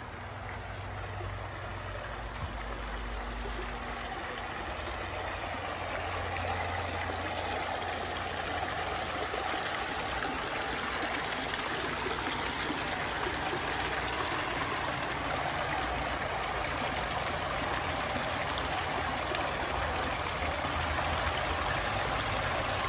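Water splashing steadily into a small backyard pond, growing louder over the first several seconds and then holding steady.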